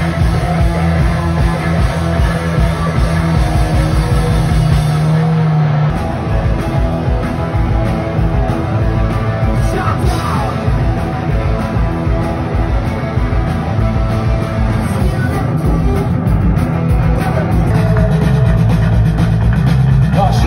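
Loud live rock music from a band on electric guitars and drums, changing abruptly to a different passage about six seconds in.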